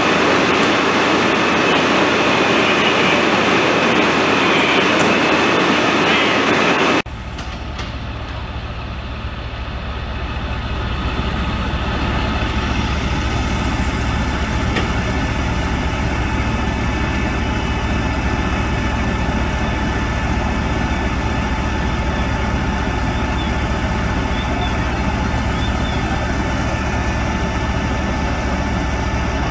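Diesel engines of fire trucks running steadily. A loud rushing noise for the first seven seconds or so cuts off abruptly, leaving a steady low engine drone.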